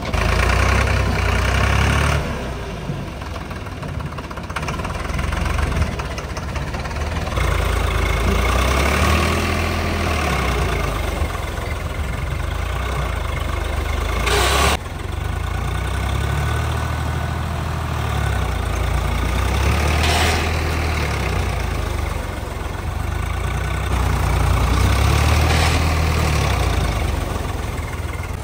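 Tractor diesel engine running, its level swelling and easing as the load changes. A sharp metallic clank comes about halfway through, and a softer one a few seconds later.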